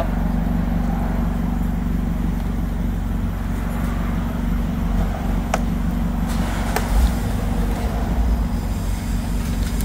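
Steady low hum in the background, with a couple of sharp clicks a little past the middle as a plastic trim tool pries at the clipped-in triangular trim piece at the top of a car door panel.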